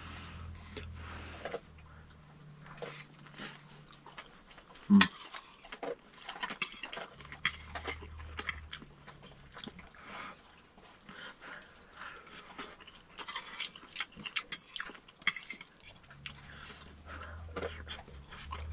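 Close-up eating sounds: chewing and lip smacks, with a fork clicking and scraping on a plate, and one sharper knock about five seconds in.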